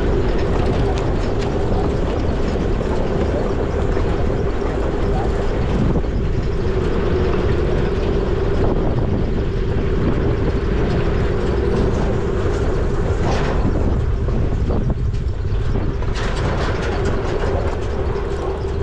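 Motor vehicle driving, a steady low rumble of engine and road noise with a constant drone.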